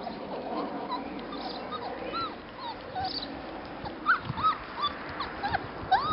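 Labrador retriever puppies whimpering in short, high, rising-and-falling whines, more often and louder in the second half, over soft smacking as they eat from their bowls.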